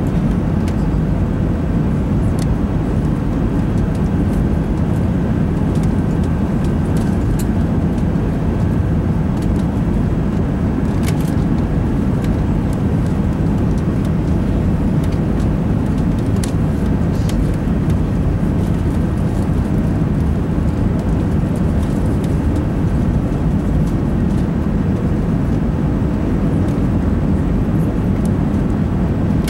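Steady low rumble of an Airbus A380's engines and rushing air, heard inside the passenger cabin during the climb after takeoff, with a faint steady whine above it.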